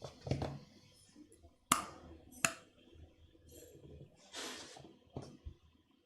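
Two sharp clicks and a few softer ones, with a short hiss about four seconds in: a ballpoint pen held between the teeth knocking against them as the jaw shifts sideways.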